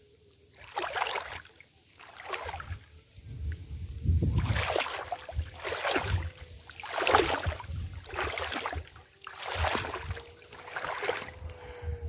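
Footsteps wading through shallow water and mud in a flooded rice-paddy ditch, sloshing and splashing about once a second.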